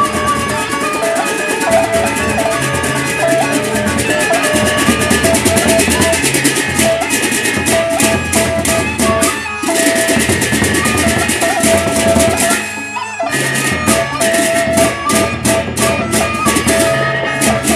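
Sasak gendang beleq ensemble playing: large double-headed drums beaten with sticks, a crowd of hand cymbals clashing in a fast, dense rhythm, gongs, and a high held melody line above. The cymbals drop out briefly twice, about halfway through and again a few seconds later.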